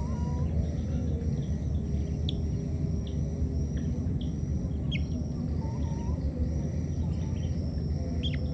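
Outdoor ambience over a steady low rumble and a steady high buzz, with a few short, high chirps and downward squeaks scattered through, several in the middle and one near the end.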